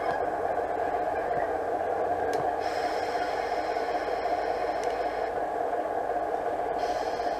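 Simulated diesel engine idling from the DCC sound decoder in an O gauge model Class 25 locomotive, played through its small onboard speaker. It runs steadily, and a higher tone joins in for a few seconds about two and a half seconds in and again near the end.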